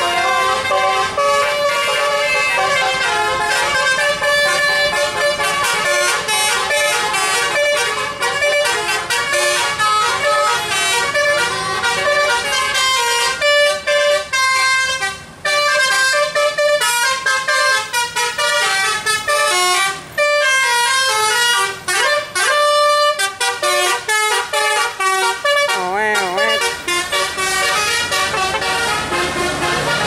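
Bus 'telolet' musical air horns playing melodies in quick stepped notes, several pitches sounding together. There are short breaks about halfway, and a wavering, wobbling tone near the end.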